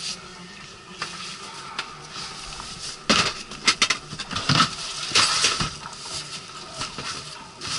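Knocks, clatter and rubbing as things are shifted about inside a small van body, with a cluster of sharp knocks from about three seconds in.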